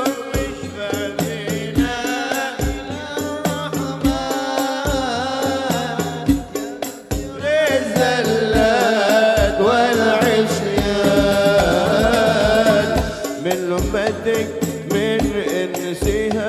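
A man sings a sholawat (devotional Arabic song praising the Prophet) solo into a microphone. A hadroh ensemble of frame drums and bass drums keeps a steady beat under the voice.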